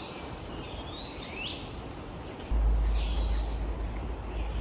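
Forest songbirds calling, a few short whistled notes that slur up and down. About halfway through, a steady low rumble sets in under the birdsong.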